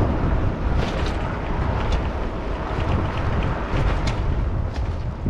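Wind buffeting the microphone: a loud, rumbling noise with a few light clicks scattered through it.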